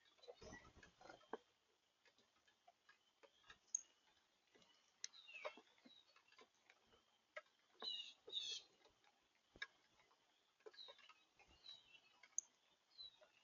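Faint, scattered ticks and clicks, with a few brief high chirps from small birds at a backyard feeder.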